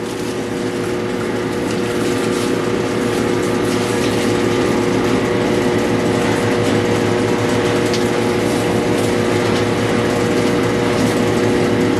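Pressure-washer pump running steadily with a constant mechanical hum, water passing through it as the bypass valve is being closed to build pressure. The sound grows a little louder over the first couple of seconds, then holds steady.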